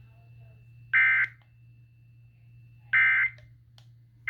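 EAS/SAME end-of-message data bursts from a NOAA Weather Radio broadcast: short, loud, buzzy digital tones, two about two seconds apart and a third starting at the very end. They mark the end of the warning message.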